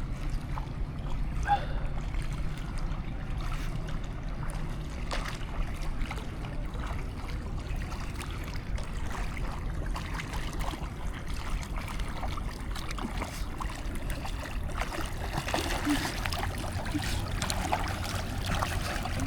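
Water sloshing with light, scattered splashing from a person swimming and moving through the water, over a steady low rumble.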